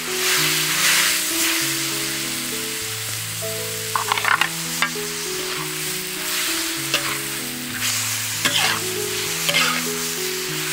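Chicken and shredded aromatics sizzling as they are stir-fried in a wok. The sizzle swells right at the start, and from about four seconds in a metal spatula scrapes and clinks against the wok several times.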